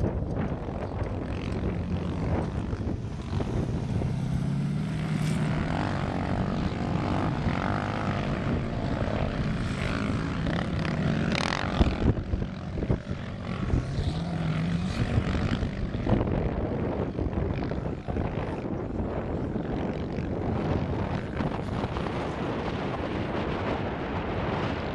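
Sandrail's engine running hard across the dunes, heard from a distance, its pitch rising in revs a few seconds in and again past the midpoint. A sharp thump about twelve seconds in is the loudest moment.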